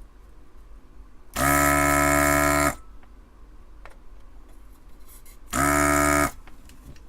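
Electric desoldering tool's vacuum pump buzzing in two steady bursts, a longer one about a second in and a shorter one near the end, as it sucks molten solder out of through-hole joints on the circuit board.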